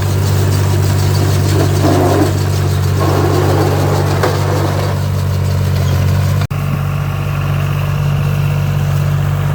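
Tractor engine running steadily at an even speed. The sound cuts out for an instant about six and a half seconds in, then carries on.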